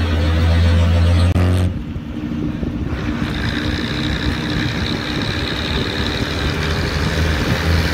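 Bus engine and road noise heard from inside a moving bus: a steady low drone over a constant rumble, with an abrupt change a little under two seconds in.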